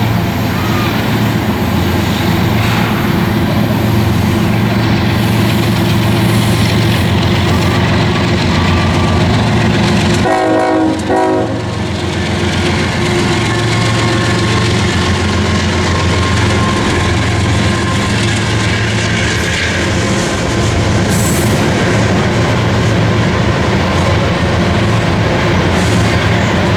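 Coal train cars rolling past, a loud, steady rumble of steel wheels on rail.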